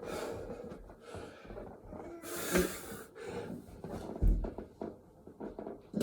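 Heavy, hard breathing of a man mid-set of burpees: forceful exhales that come and go, with a heavy thump about four seconds in as his body or feet hit the floor.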